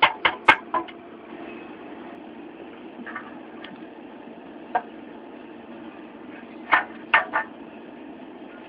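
Dodge Dakota 4.7L V8 engine running steadily, with a few sharp clicks in a cluster at the start and another near the end. This is a right-side engine tick, the sign of leaking exhaust manifold gaskets and failed manifold bolts.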